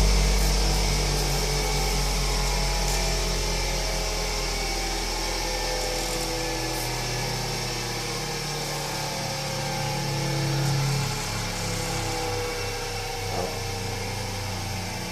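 Bench grinder coasting down after being switched off, its motor hum slowly fading as the wheels lose speed, with fingernails ground against the slowing wheel. The sound swells briefly about eleven seconds in.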